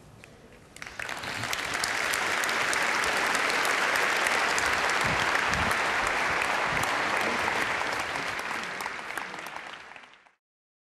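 Audience applauding: the clapping swells in about a second in, holds steady, then thins and is cut off shortly before the end.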